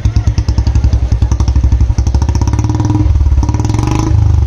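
Royal Enfield Bullet 350 single-cylinder engine exhausting through a Long Punjab silencer. It idles with an even thumping beat, then is revved up about two seconds in into a faster, heavier exhaust note.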